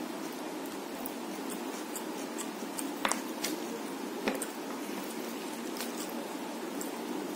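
Fingers mixing and squishing rice with chicken curry on a plate, with scattered small clicks and two sharper ones about three and four seconds in, over a steady hiss.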